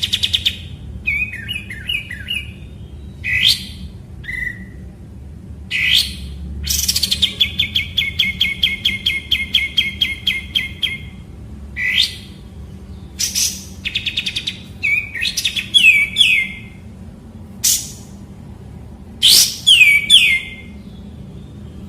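Kapas tembak bulbul singing: sharp calls that sweep down in pitch, and a long rapid trill of repeated notes lasting about four seconds, with loud paired calls near the end.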